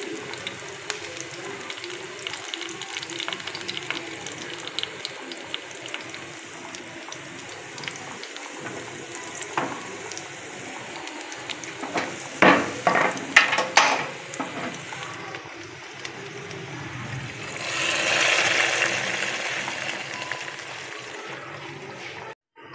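Sliced onion and green chillies sizzling in hot oil in a steel frying pan for a tadka. Several sharp metal knocks about twelve to fourteen seconds in come from the spatula stirring against the pan. A louder rush of sizzling follows near the end as the hot tadka is tipped into the pot of haleem.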